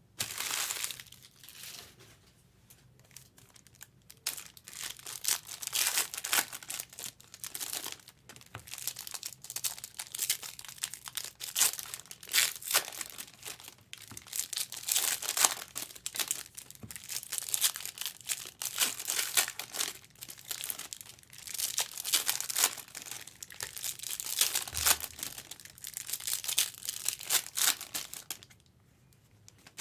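Plastic trading-card packaging being handled, crinkling and tearing in repeated bursts.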